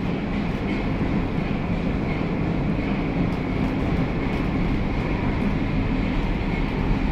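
Stadler M110 metro train running on the line, heard from inside the passenger car: a steady, even running noise with no change in level.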